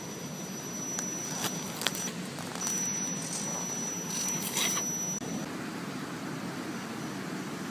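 Axial SCX10 RC rock crawler running its electric motor and drivetrain as it crawls over logs and rocks, with a steady high whine. Short clicks and scrapes come from the tyres and chassis on the rock and wood. The whine breaks off briefly around two seconds in and stops about five and a half seconds in.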